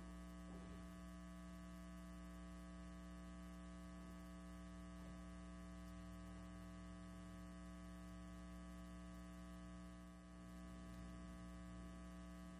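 Faint, steady electrical mains hum: a low buzz of evenly spaced steady tones with nothing else over it.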